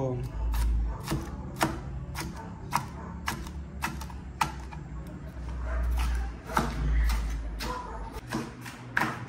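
Kitchen knife chopping green bell pepper on a plastic cutting board: irregular sharp knocks of the blade hitting the board, about two a second, over a low rumble.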